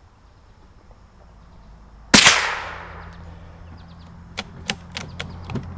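A single rifle shot about two seconds in, with a long fading echo, then about five sharp clicks in quick succession near the end.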